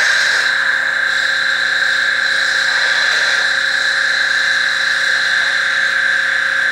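A 3100 PSI pressure washer running steadily at full pressure, its zero-tip straight jet cutting a trench into wet soil. The note stays even and unchanging throughout.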